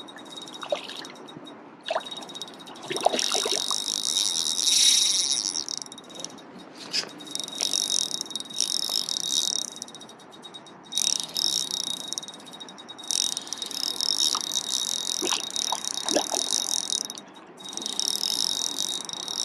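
Insects chirping in repeated high, buzzing bursts of a few seconds each, with short pauses between them.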